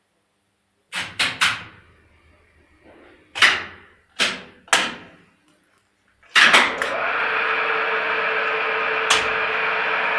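A series of sharp clicks and knocks, then a machine switches on and runs with a steady whirring noise and a constant hum.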